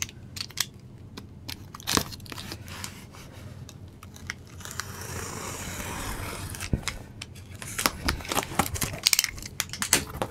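A cardboard shipping package of vinyl records being cut and torn open: tearing and rubbing of cardboard and tape for a couple of seconds midway, with sharp clicks and knocks throughout that come thickest near the end.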